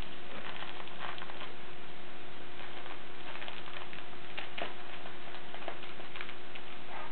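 A cat's paws and claws pattering and clicking on the floor and rug as it moves about with a fuzzy toy: light, irregular clicks, some in quick clusters, over a steady hum.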